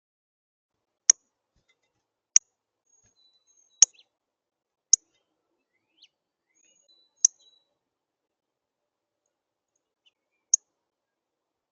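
A bird at the feeder giving sharp, high chip notes, six single chips at uneven intervals, with a few faint high whistled notes between them.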